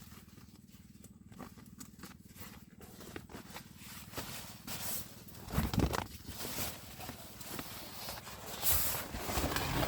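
Scattered knocks, rustles and footsteps of camping gear being handled while a tent is pitched. The sounds are quieter at first and grow louder and busier in the second half.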